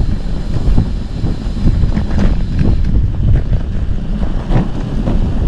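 Heavy wind buffeting on the microphone of a moving bicycle, a constant low rumble, with scattered short knocks and rattles.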